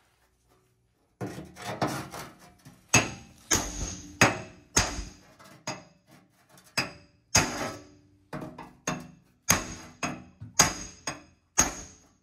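Hammer blows on a steel truck bumper, a long run of irregularly spaced, ringing metal strikes starting about a second in. The cracked bumper steel is being knocked into line for welding.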